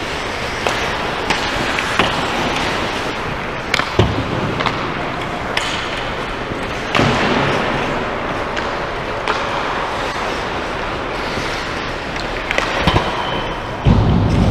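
Ice hockey play on an indoor rink: skate blades scraping the ice under a steady hiss, broken by sharp clacks of sticks striking the puck and each other, about a dozen scattered through. A louder, deeper burst comes in near the end.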